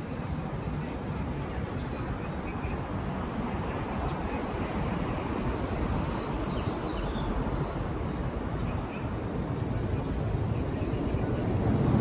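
Steady busy-city street ambience: a dense rumble of traffic and crowd noise, with a faint high-pitched buzz pulsing on and off above it. It grows slightly louder near the end.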